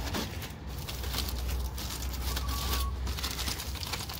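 Aluminum foil crinkling in irregular crackles as it is pulled open and folded back from a rack of smoked ribs, over a steady low rumble.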